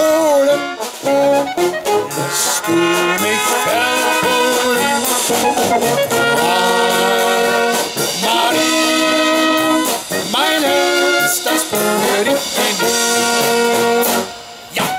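German brass band with tuba, baritone horns and trumpets playing a lively tune in held, rhythmic chords, stopping near the end.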